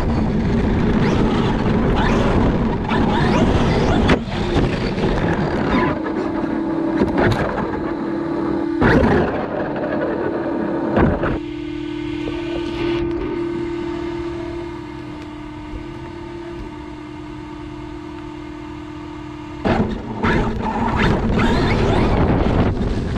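Traxxas X-Maxx 8S brushless RC monster truck heard from an on-board camera: wind and tyre rumble with sharp knocks from bumps. For most of the middle there is a steady high whine from the motor drivetrain, which goes quieter about halfway and cuts off with a knock a few seconds before the end. The loud rumble then returns.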